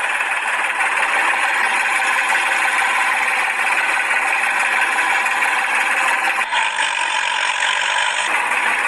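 Small electric motor of a homemade toy tractor running steadily as it drives the wheels.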